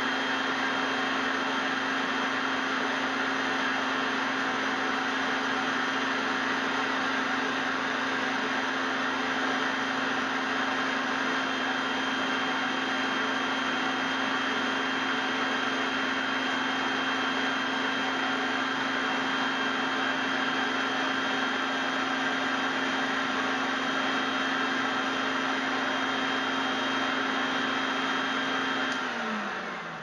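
850 W La Germania vacuum cleaner running steadily with a constant whine, then switched off about a second before the end, its motor spinning down with a falling pitch.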